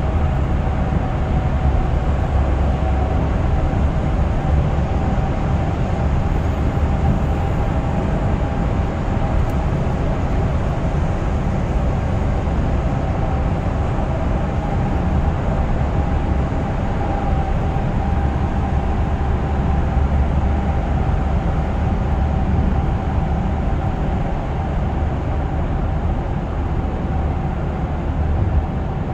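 Cabin driving noise of a Hyundai Staria Lounge with the 2.2-litre diesel, cruising at about 80 km/h through a road tunnel: a steady low rumble of tyres, engine and wind, with a faint steady hum above it.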